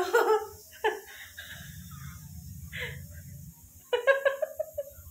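A woman laughing in short voiced bursts, with a longer run of laughs about four seconds in.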